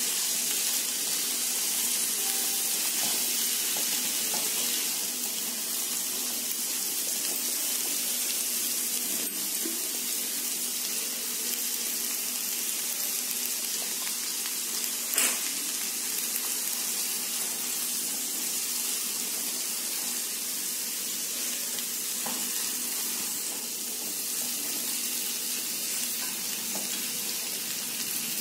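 Spiced boiled chickpeas sizzling steadily in hot oil in a pan as they are stir-fried, with one sharp knock about halfway through.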